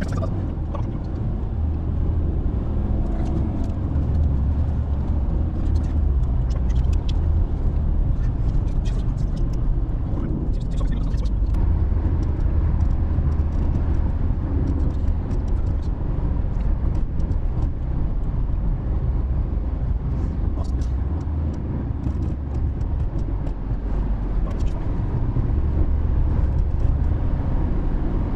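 Car driving on the road: a steady low rumble of engine and tyre noise, with faint scattered clicks.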